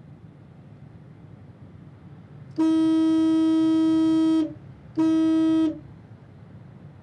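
Car horn honked twice: one long blast of about two seconds, then a short one, both on the same steady pitch.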